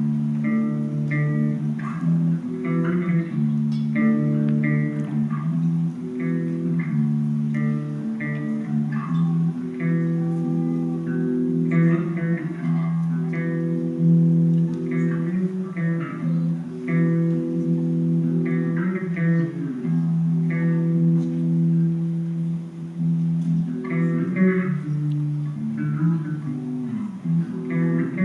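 Guitar playing licks: held low notes with quick runs of higher plucked notes over them.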